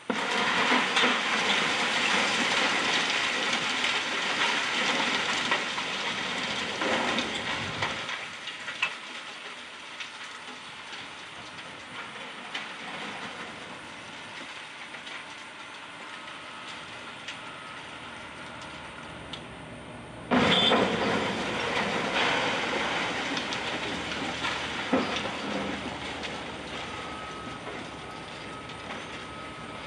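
A wrecking ball striking a partly demolished building, followed by several seconds of rubble and debris crashing and rattling down. It happens twice: once at the start and again about 20 seconds in, each time fading gradually.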